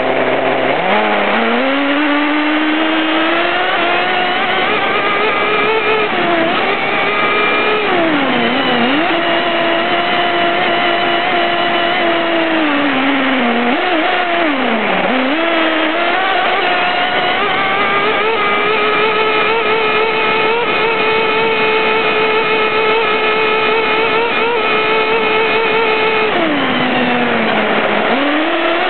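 OFNA Dominator RC truck's .21 Hyper two-stroke nitro engine revving up and then running at high revs under the onboard camera. It drops in pitch briefly when the throttle is eased, around eight seconds in, twice around fourteen to fifteen seconds, and again near the end, and climbs back each time.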